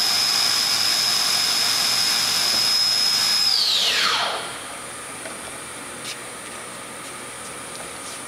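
Haas VF-3's geared 20 hp spindle running at its top speed of 7,500 RPM with a loud, steady high whine. About three and a half seconds in, the spindle stops, and the whine falls quickly in pitch and is gone within about a second. A quieter steady hum remains.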